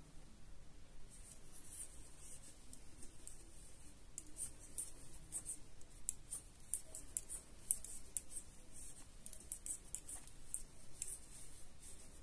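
Knitting needles working stitches along a row: quick, irregular light ticks and slides of the needles.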